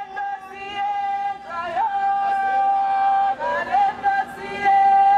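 A protester's high voice singing long held notes that slide up and down between pitches.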